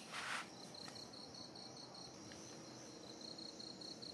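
A cricket chirping in a steady, high, pulsing trill of about five or six pulses a second, starting about half a second in. A brief rustle comes right at the start.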